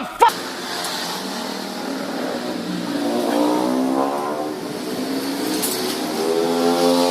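Two short, sharp sounds right at the start, then an engine running with its pitch rising and falling, like light revving.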